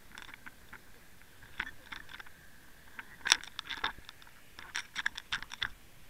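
Irregular bursts of sharp clicks, ticks and light knocks, heard underwater through a camera housing mounted on a fluke rig as the bucktail jig and teasers are worked over sandy bottom, with a faint steady whine behind them. The clicks come in four clusters, the loudest a little over three seconds in.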